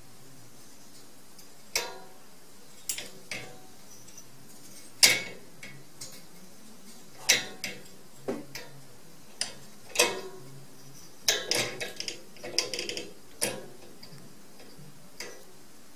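Metal slide-bolt latch and wire door of a cage clicking and rattling as a cat paws at the bolt. The clicks come irregularly, a second or more apart, with the loudest one about a third of the way in and a quick run of clicks about three-quarters through.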